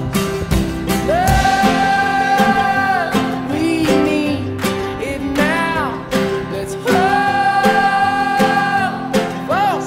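Background music: a song with guitar accompaniment and a singer holding two long notes.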